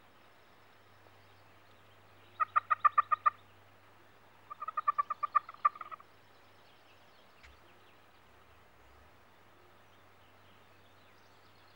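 Turkey calling: two quick runs of sharp, evenly spaced notes, about nine a second, a couple of seconds apart, the second run a little longer.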